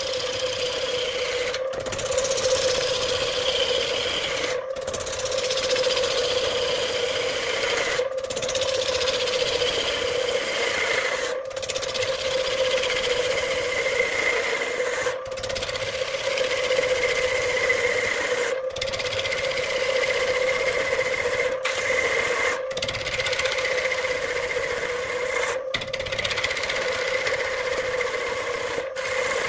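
Wood lathe spinning a large wooden vase blank while a hand-held turning chisel cuts into it: continuous scraping and shaving over a steady hum. A high cutting whine slides down in pitch after each of the brief gaps that come every few seconds.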